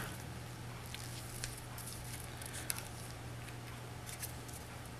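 Faint rustling and scraping of hemp twine being pulled tight and wound around a cardstock shell casing, in short scattered scratches over a low steady hum.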